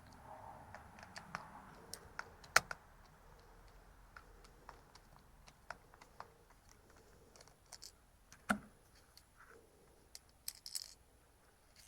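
Scattered small clicks and taps of hand work with a screwdriver on the plastic housing of a camper's side marker light, as its screws and lens come out. One sharper click comes about two and a half seconds in, a duller knock about eight and a half seconds in, and a quick run of clicks near the end.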